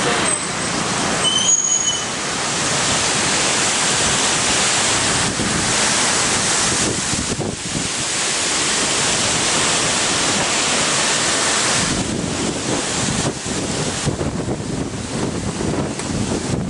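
Storm wind gusting through roadside trees and buffeting the camera microphone: a loud, continuous rushing noise that eases slightly about twelve seconds in.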